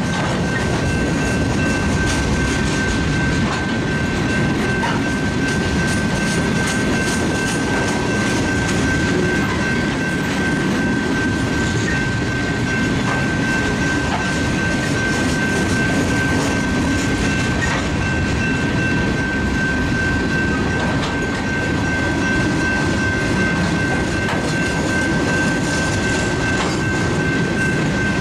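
Freight train of covered hopper and tank cars rolling steadily past, a continuous rumble of wheels on rail with light clickety-clack. A thin steady high tone sits over it throughout.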